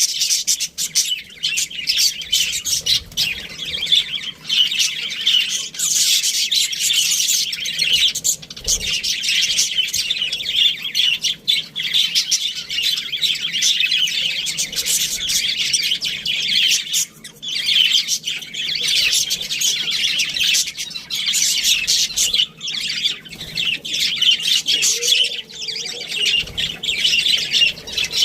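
A flock of budgerigars chattering together: a dense, continuous stream of warbles, chirps and squawks.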